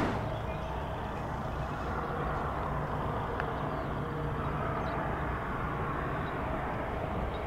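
Steady low rumble of distant engine noise with a faint hum: background airport ambience.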